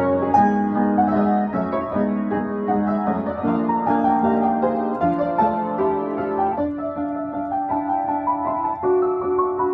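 Piano playing a classical piece, a steady flow of melody over sustained chords.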